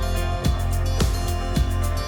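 Background music with a steady beat about twice a second over a sustained bass line.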